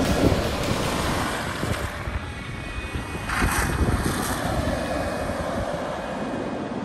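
A Toyota HiLux ute drives past on the beach, its engine running under wind buffeting the microphone and breaking surf. There is a brief louder rush about halfway through.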